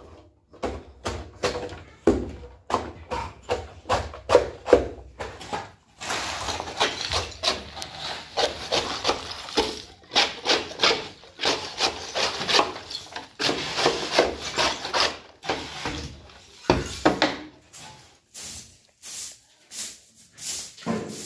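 A trowel scraping plaster in a shallow bowl in short repeated strokes. Then about ten seconds of gritty scraping as plaster rubble is pushed across a concrete floor with a flat scraper, and near the end separate broom strokes sweeping the debris.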